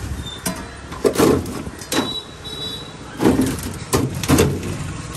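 Clear plastic bag of ice being handled and set down into a steel tray: several short clunks and plastic rustles. Steady street traffic runs underneath.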